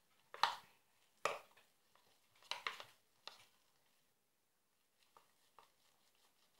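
A spoon scraping and knocking against a ceramic mixing bowl as thick, doughy homemade putty is stirred: several sharp strokes in the first three seconds or so, then a couple of fainter ones.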